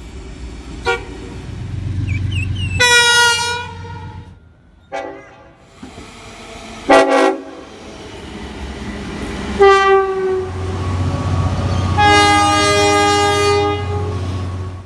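Locomotive air horn sounding a series of separate blasts, some short and some longer, the last held for about three seconds, over the low rumble of a passing train.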